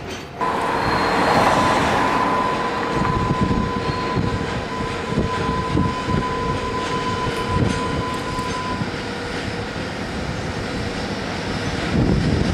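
Freight train running along the track: a steady whine that fades out about nine seconds in, over a rumble with irregular low knocks from the wheels.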